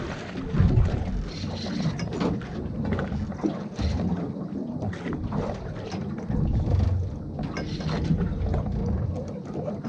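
Water slapping and knocking against a drifting boat's hull, with wind buffeting the microphone in an uneven low rumble.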